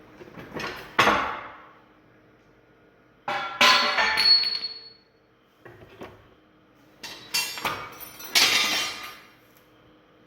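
Clanks and hammer-like blows of steel on steel in three bursts, the middle burst leaving a short metallic ring: heavy loader hardware such as cylinder pins being knocked and handled.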